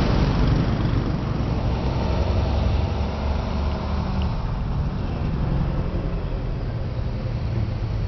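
Steady low rumble of the diesel locomotives heading a freight train towards the camera, mixed with road traffic passing alongside.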